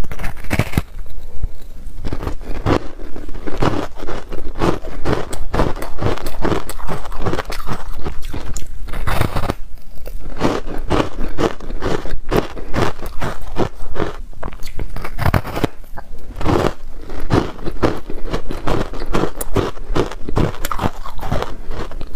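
Close-miked biting and chewing of a frozen layered ice bar dusted with matcha powder: a dense, continuous run of crisp crunches as the ice breaks between the teeth.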